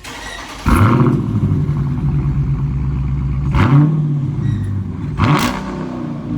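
392 cubic-inch HEMI V8 starting about a second in with a brief flare of revs, then idling with a deep, steady note. It is blipped twice, about three and a half and five seconds in.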